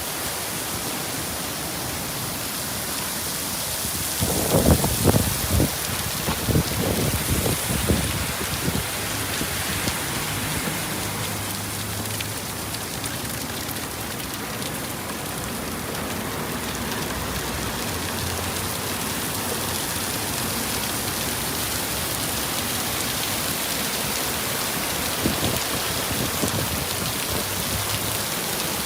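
Roadside waterfall's falling water making a steady, full-range rushing hiss. A run of irregular low thumps and rumbles comes from about four to nine seconds in.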